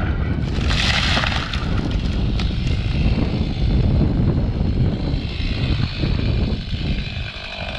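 Chainsaw running steadily at working speed, with a harsher, brighter stretch about a second in.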